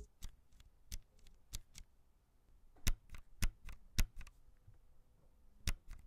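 Red linear low-profile mechanical switch on a Logitech MX Mechanical keyboard, pressed by a finger with its keycap off. It gives a string of separate sharp clacks as the switch bottoms out, spaced irregularly about every half second to second, with no tactile click in between.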